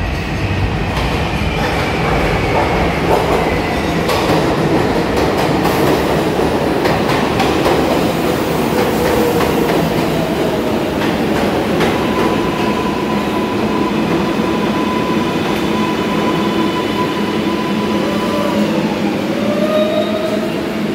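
R142A subway train pulling into the station and slowing to a stop: a loud rumble with wheels clacking over the rail joints, and an electric whine falling in pitch as it slows, then steady tones near the end as it comes to rest.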